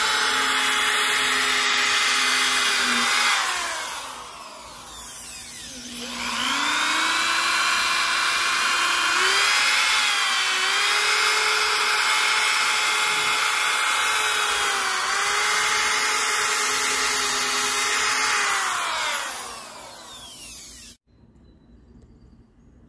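DeWalt corded drill running with a foam polishing pad on a plastic headlight lens, a steady whine. It slows to a stop about four seconds in, starts up again with rising pitch a couple of seconds later, dips in speed a few times, then winds down and cuts off sharply to quiet near the end.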